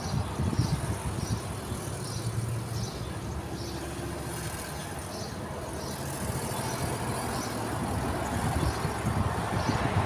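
Road traffic: a motor vehicle's rumble, growing louder near the end as it comes closer. Over it, a short high chirp repeats steadily every second or so.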